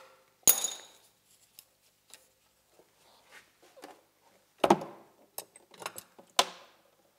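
Scattered sharp metallic clinks and knocks of a socket wrench on a long extension being fitted to and worked on the engine oil drain plug under a Polaris RZR 900XP: one ringing clink about half a second in, then a quick run of knocks near the end as the drain pan is brought under the plug.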